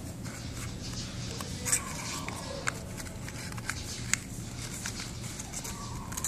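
Origami paper rustling and crackling as it is folded and pressed between the fingers, with a few sharp crackles, the loudest about two and four seconds in, over a steady low hum.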